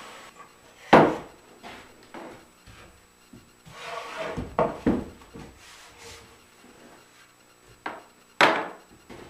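Wooden knocks and scrapes from handling a homemade MDF-and-plywood router planing sled as the router and its sliding carriage are lifted off and set aside: a sharp knock about a second in, a cluster of scraping and knocking around four to five seconds, and two more knocks near the end.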